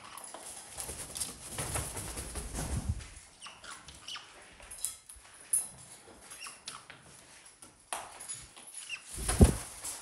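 Caiques scrambling about on rope perches: rustling and flutter in the first few seconds, then scattered small clicks and taps of feet and beaks, and a sharp loud knock near the end.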